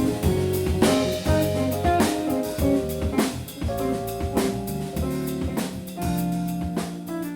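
A band playing with a drum kit keeping a steady beat under a bass line and held chords, growing quieter over the last few seconds.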